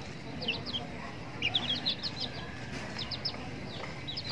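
Small birds chirping in quick runs of short, high, falling notes, a run about every second, over a steady low background hum.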